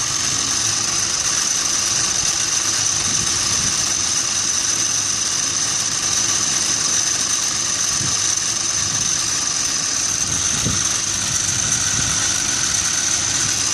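Steady mechanical hum with a constant high-pitched whine over it, running unchanged.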